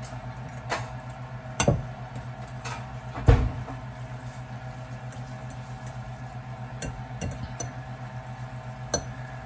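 Knocks and clinks of dishes and utensils on a kitchen counter, several short hits with the loudest about three seconds in, over a steady low hum.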